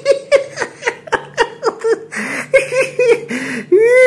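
A man laughing hard in rapid, repeated bursts, several a second, ending in a longer drawn-out laugh.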